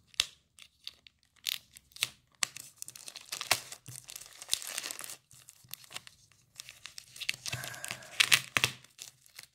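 A plastic mailer bag being slit with a folding knife and pulled apart by hand: plastic film crinkling and tearing in irregular snatches with short pauses, the sharpest rips about eight seconds in.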